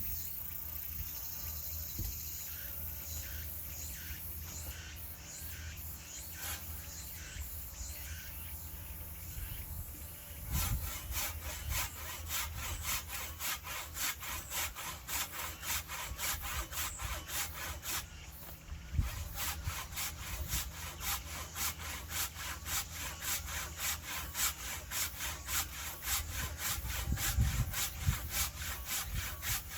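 Hand saw cutting through firewood. The strokes are loose and uneven at first, then settle about a third of the way in into a fast, steady back-and-forth rhythm, with a brief pause about two-thirds in.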